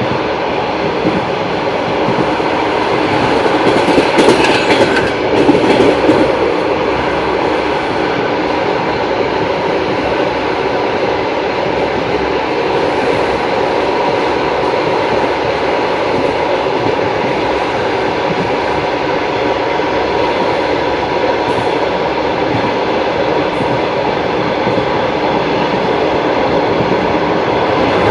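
Long-distance passenger train running at speed, its wheels clattering steadily over the rail joints. A louder run of sharp clacks comes about four to six seconds in.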